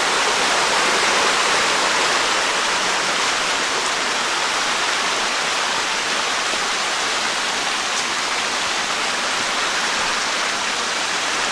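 Creek water rushing steadily, the stream running high after heavy recent rain.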